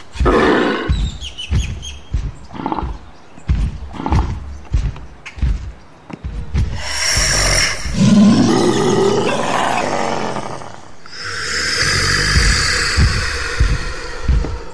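Hulk-style monster roars over heavy stomping thuds, about one or two a second, with a short roar at the start. About halfway in comes a long, loud roar that rises and falls in pitch, followed by a harsher, hissier one.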